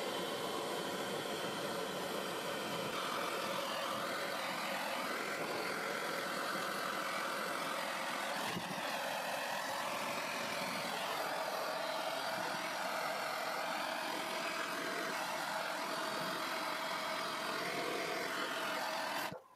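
Handheld gas torch burning steadily as it chars the inner edge of a walnut slab. The sound cuts off suddenly at the very end.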